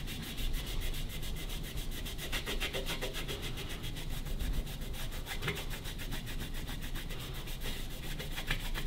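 A cloth with T-Cut cutting compound scrubbed rapidly back and forth over a metal sidecar mudguard, rubbing off old marks left by a lamp. The strokes are quick and even, several a second.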